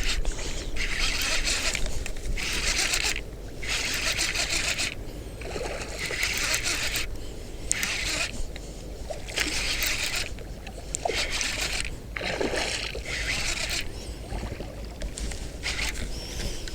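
Repeated splashing and swishing in shallow water, a burst about every second or so.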